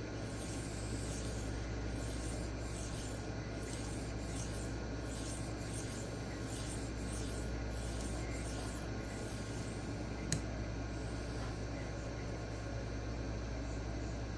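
A D2 steel knife blade being stroked freehand across a 1x6 inch diamond sharpening stone: a steady rhythm of light scraping strokes. A single sharp click comes about ten seconds in.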